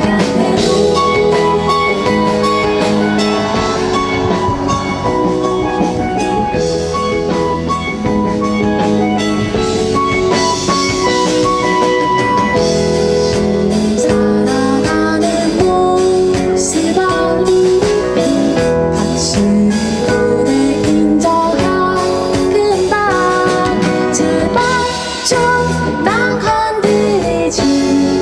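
Live pop band playing with guitar and drum kit, and a voice singing at times.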